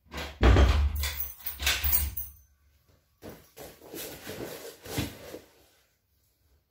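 Footsteps, clothing rustle and knocks close to the microphone as a man moves off to open a door, in two clusters of noise split by a short pause.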